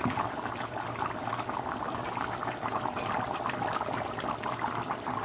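Chicken boiling in its cooking liquid in a pot, a steady bubbling with many small pops.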